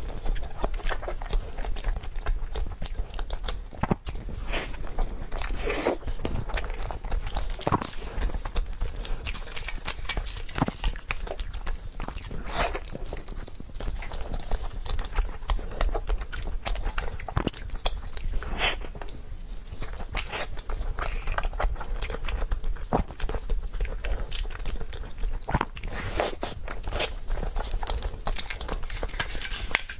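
Close-miked mouth sounds of eating soft snow-skin mochi: wet chewing, smacking and biting clicks, irregular and continuous.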